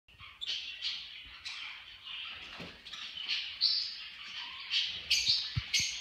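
Caged pet birds chirping: short high calls repeated irregularly, about one or two a second, with a few soft taps near the end.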